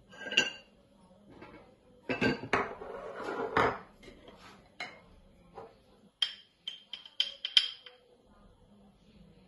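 A spoon scraping and clinking against a bowl, as sauce is worked in it. There is a rough stretch of scraping and knocks about two seconds in, then a quick run of sharp, ringing clinks near the end.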